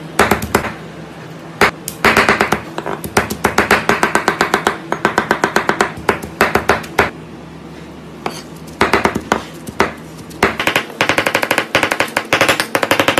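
A large knife chopping cooked octopus on a cutting board: fast runs of sharp knocks, about seven strokes a second, broken by short pauses.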